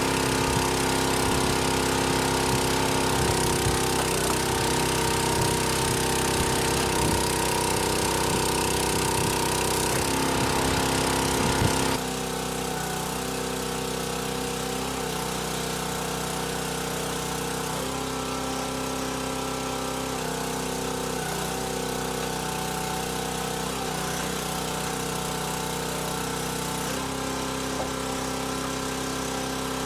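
An engine running steadily, its tone changing abruptly and dropping in level about twelve seconds in.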